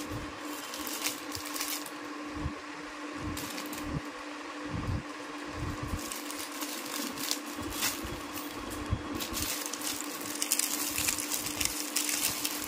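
Plastic saree packets rustling and crinkling as they are handled, with irregular small clicks and crackles over a steady low hum.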